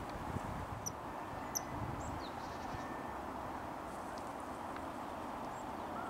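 Outdoor pond ambience with a steady low rumble, and a few short, high bird chirps in the first couple of seconds.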